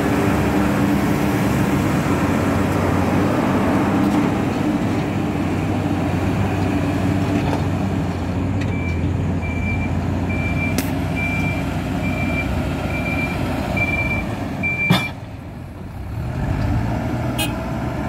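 Hidromek 102S Supra backhoe loader's diesel engine working under load as it pushes earth. About halfway through its reversing alarm beeps steadily, about one and a half beeps a second, for some six seconds; a sharp click ends the beeping, and the engine then carries on at a lower, steadier pitch.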